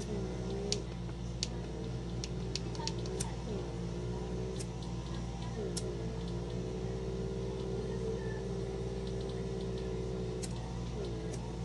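Small battery-powered pore vacuum's motor running with a steady whine, its pitch sagging and recovering several times, with scattered faint clicks.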